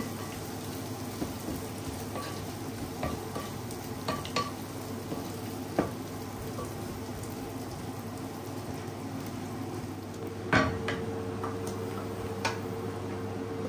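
Wooden spoon stirring and scraping green and black olives frying in a non-stick pan, with light sizzling and scattered taps of the spoon against the pan. A louder knock comes about ten and a half seconds in.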